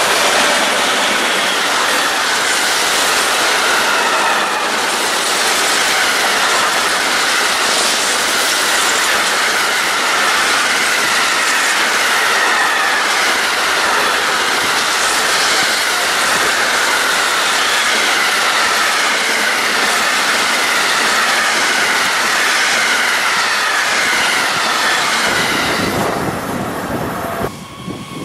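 A train passing close by at speed: a steady loud rush of wheels on rail, with a faint falling whine that comes back every couple of seconds. The sound drops away suddenly near the end.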